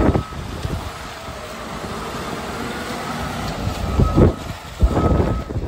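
Mercedes Actros 2551 tractor unit's diesel engine running, with a reversing alarm starting to beep in short beeps about two-thirds of the way through. A few short, loud rushes of noise stand out over the engine near the end.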